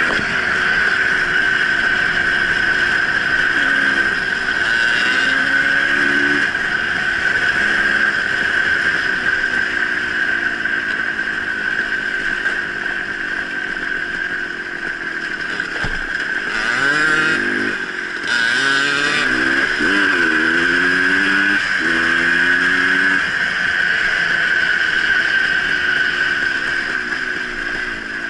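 Small dirt bike's engine running while riding, its note rising and falling. Several times in the second half it climbs in pitch as the bike accelerates through the gears. A steady high hum runs underneath throughout.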